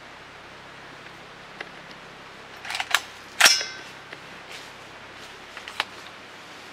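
Diamondback .308 AR-10 rifle being handled and its action worked. A quick rattle of clicks comes first, then a single sharp metallic clack with a brief ring about halfway through, typical of the bolt going home. A few light clicks follow as the rifle is settled.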